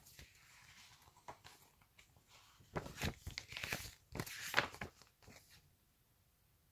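Plastic snack wrapper being handled, torn open and crinkled, in a run of irregular crackles and rustles that is busiest about three to five seconds in and stops shortly after.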